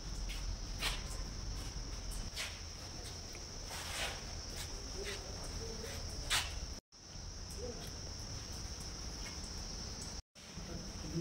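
A chorus of insects, crickets or cicadas, keeping up a steady high-pitched shrill over a low rumble, with a few short knocks now and then.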